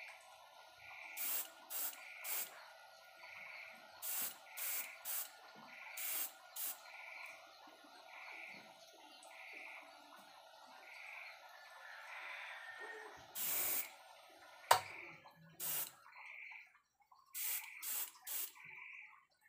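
Airbrush spraying paint in short hissing bursts, mostly in quick groups of two or three, with one longer burst about 13 seconds in. It is fed by a homemade compressor built from an old refrigerator compressor and a small LPG tank. A steady background running noise stops with a sharp click about 15 seconds in.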